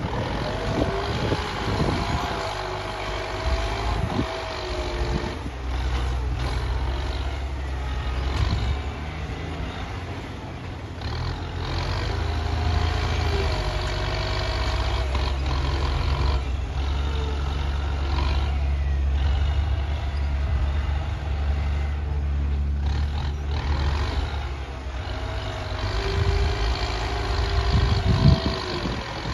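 Excavator working: its engine runs steadily underneath, and a hydraulic whine rises and falls again and again as the machine moves.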